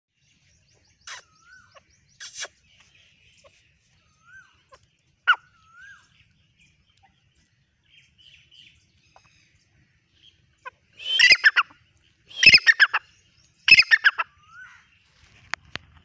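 Grey francolin calling: soft, short rising-and-falling notes, then about eleven seconds in three loud, harsh calls roughly a second apart. A couple of sharp clicks sound near the start.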